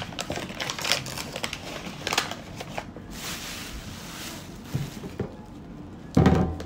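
Plastic grocery bag and bag of granulated sugar crinkling and rustling as they are handled on a glass table, with a soft steady hiss in the middle and one heavier knock near the end.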